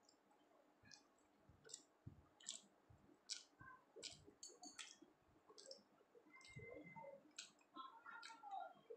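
Faint, wet mouth clicks and chewing sounds, irregular short clicks every half second or so, as paratha with chana dal and a syrupy rosogolla are chewed with the mouth closed.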